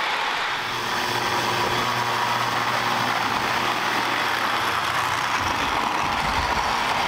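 Lionel O gauge Southern Crescent train running past on three-rail track: a steady whir and rumble of wheels and motor, with a low hum that fades out about five seconds in.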